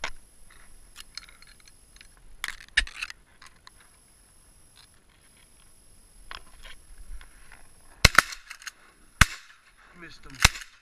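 Rustling in marsh grass, then three shotgun blasts about a second apart near the end, sharp and clipped through the head camera's microphone.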